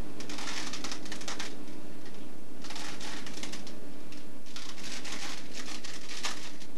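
Crackly rustling and clicking from hands working something small, in several bursts about a second long with short pauses between.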